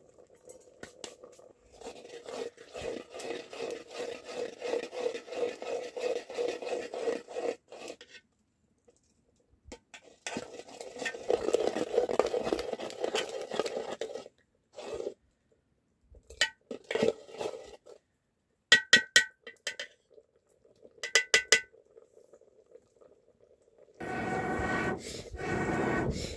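Metal spoon stirring and scraping around a pot of steaming liquid over a wood fire, in two long bouts, followed by a few short ringing clinks of the spoon against the pot.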